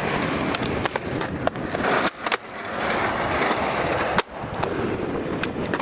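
Skateboard wheels rolling on concrete, a steady grinding roll broken by several sharp clacks of the board striking the ground and a ledge.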